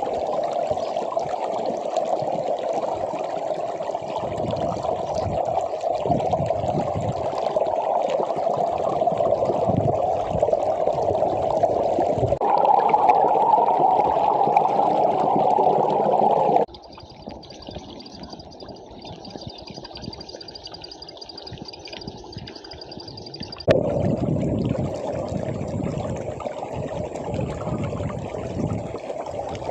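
Rushing stream water, running steady and full after rain. The sound jumps abruptly a few times; a quieter stretch about two-thirds of the way through carries a faint steady high tone before the louder rush comes back.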